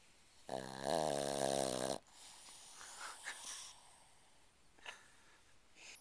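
Sleeping Boston terrier snoring: one loud, pitched snore starting about half a second in, which lasts about a second and a half and cuts off sharply. It is followed by a softer, breathy breath out and a few faint clicks.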